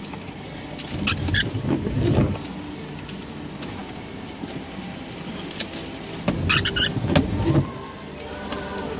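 Car and road noise that swells twice, with a few sharp clicks and rattles mixed in.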